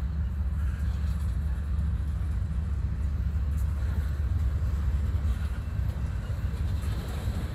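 Freight train tank cars rolling past, a steady low rumble of steel wheels on rail.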